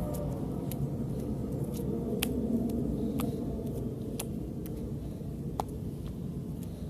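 Slime being kneaded and mixed by hand, giving scattered sharp clicks and pops over a steady low background rumble.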